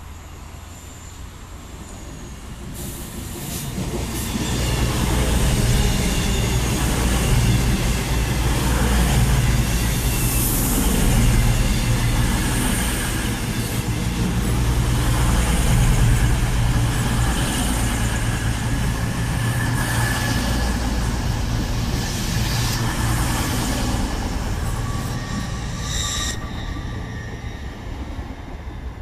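CrossCountry Voyager diesel multiple unit running through the station at speed, its underfloor diesel engines humming under the rush and rumble of wheels on rail. It builds from about three seconds in, stays loud for some twenty seconds, then drops off sharply near the end.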